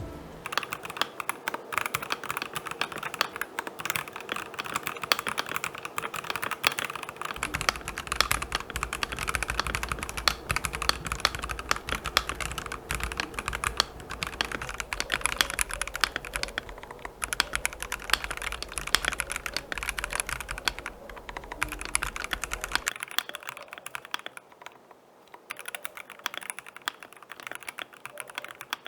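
Typing on a Royal Kludge RK H81 gasket-mount mechanical keyboard with its stock cyan switches and thick PBT keycaps, a steady fast stream of key clicks that thins out a little near the end.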